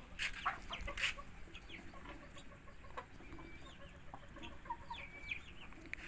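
Several chickens making soft clucks and short high calls, scattered through, with a couple of soft knocks about a second in.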